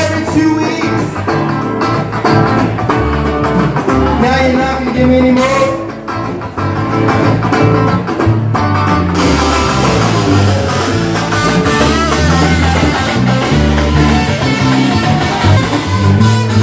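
Live band playing a song: electric guitar over a stepping bass line, with a singing voice. The sound grows fuller and brighter from about nine seconds in.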